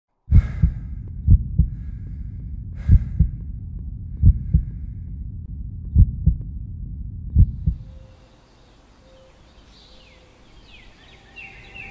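Slow heartbeat: a low double thump about every one and a half seconds over a deep rumble, six beats in all. About eight seconds in the beats stop and it drops to a faint hum, with a few rising high tones near the end.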